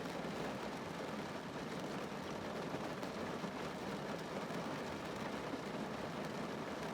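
Rain drumming steadily on a car's roof and windows, heard from inside the car as a dense, even patter.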